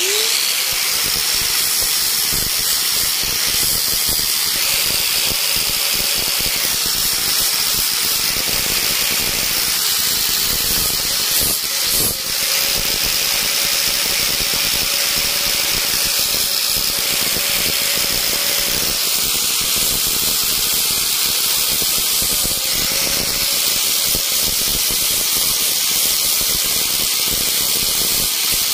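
Small high-speed electric power tool switched on, its motor winding up with a short rising whine and then running steadily with a high whine over a rough grinding noise as it works the wood.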